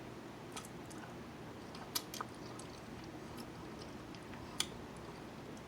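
A person chewing food quietly, with a few soft wet clicks of the mouth, a pair of them about two seconds in and another near the end.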